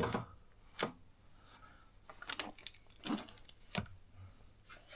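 A few scattered light clicks and taps of tools and small engine parts being handled on a workbench.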